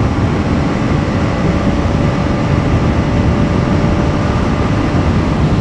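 Motorcycle running steadily at high speed, about 150 km/h in top gear, its engine drone buried under heavy wind rush on the helmet-mounted mic.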